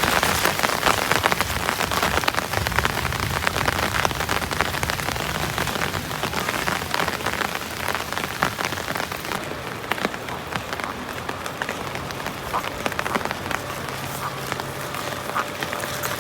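Heavy rain falling on a surface, a dense patter of drops. It eases somewhat about halfway through.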